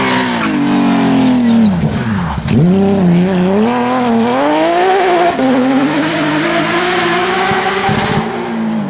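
Porsche flat-six rally engine off the throttle, revs falling steeply for about two and a half seconds, then climbing again under power through a gear change. Brief high squeals sound near the start.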